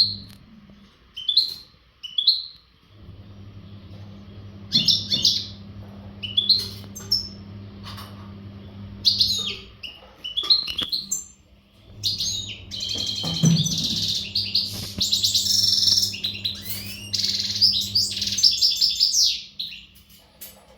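Male European goldfinch singing in breeding condition. It gives separate short chirps at first, then breaks into a fast, twittering run of song from about halfway in, which stops shortly before the end.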